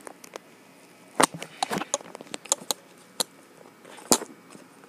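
Computer keyboard and mouse clicking: about ten irregular sharp clicks and taps, the loudest a little over a second in and again about four seconds in.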